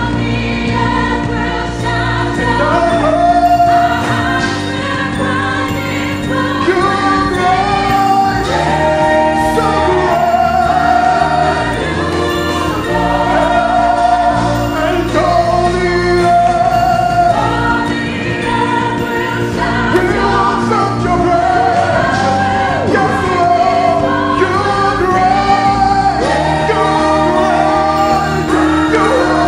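Live gospel worship music: a group of singers, a male lead with female backing voices, singing together in long held lines over keyboard and a drum kit.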